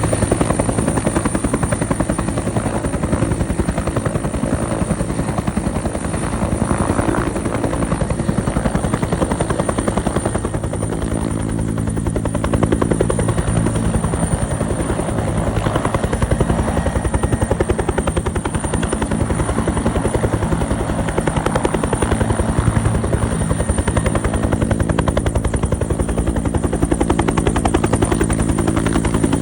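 Bell 212 helicopter hovering: the rapid, even beat of its two-bladed main rotor over the steady high whine of its twin turboshaft engines, loud and unbroken throughout.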